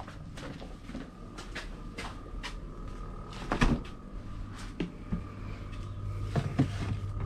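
Refrigerator door pulled open with a knock about halfway through, after which a low steady hum from the open fridge comes in. Light clicks and knocks from handling a plastic bowl run throughout.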